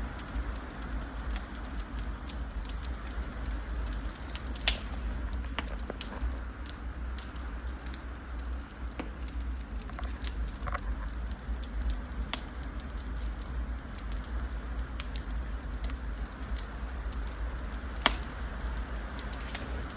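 Wood fire in a fireplace crackling, with irregular sharp snaps and two louder pops, over a low steady hum.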